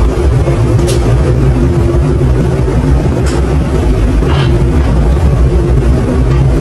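Engine of an open-sided sightseeing tram running as it drives along, heard from on board as a steady low drone.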